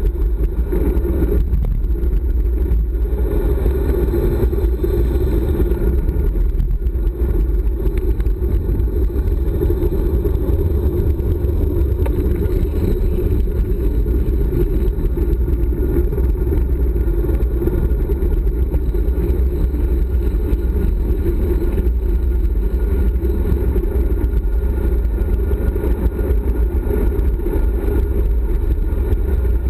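Steady, loud wind rushing over the microphone of a GoPro mounted on the handlebars of a road bike descending fast, heaviest in the low end and without a break.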